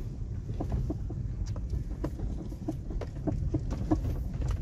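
Suzuki Celerio driving slowly over a rough, rocky track: a steady low rumble with frequent small knocks and clicks from stones under the tyres.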